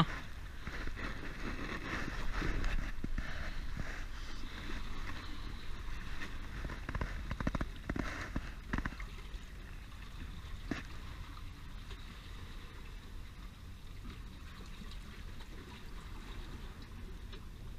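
Water trickling and sloshing among jetty rocks, steady and fairly quiet, with a few faint clicks and rustles of hands handling a fishing hook about halfway through.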